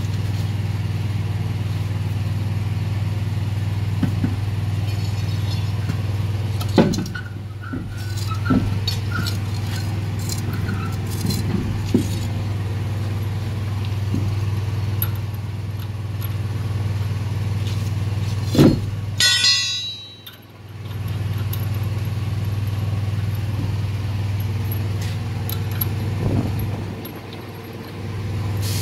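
Steady low machine hum, with scattered short metallic clinks and a brief clatter as lug nuts are threaded by hand onto the studs of a semi-truck wheel hub.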